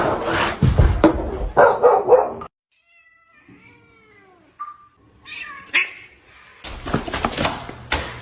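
A cat meowing: a few faint calls that rise and fall in pitch in the middle. Louder, noisy clattering comes before and after them, cutting off suddenly at first and starting again near the end.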